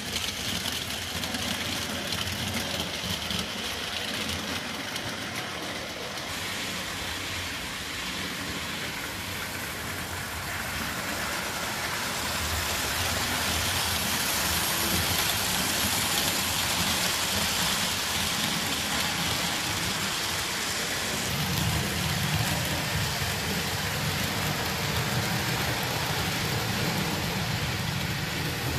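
HO-scale model trains running on the layout: a steady rushing rumble of wheels on rail and motor hum. It grows louder about halfway through, and a deeper hum joins in near the end.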